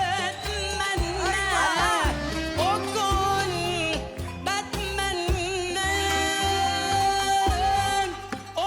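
Arabic music from a live band: an ornamented, wavering melody line over a pulsing bass beat.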